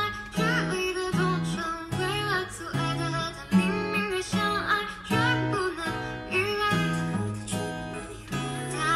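Acoustic guitar playing a pop song: plucked bass notes under chords, with a melody line above.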